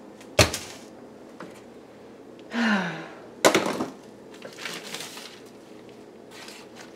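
Wooden kitchen cabinet door knocking against its frame twice, sharply, about half a second in and again about three and a half seconds in, with a short vocal sound falling in pitch between the knocks and light handling rustles after.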